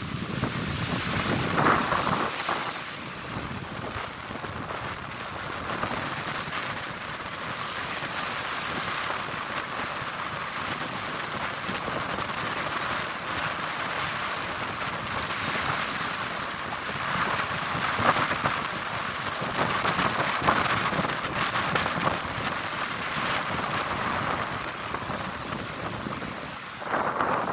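Wind buffeting the microphone over small surf washing up the beach: a steady rushing noise that swells now and then.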